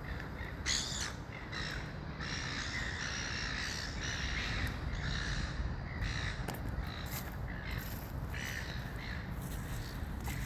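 A flock of birds calling, many overlapping calls from about a second in until near the end, over a steady low rumble.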